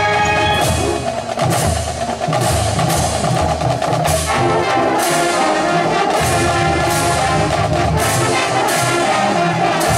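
Marching band playing: a held brass chord breaks off just under a second in, then the drumline and pit percussion take the lead with regular accented strikes under the continuing band parts.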